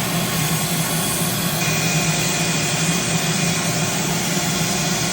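A small electric motor-driven cleaning tool running steadily with a loud rush of air and an even motor hum, cut off abruptly at the end.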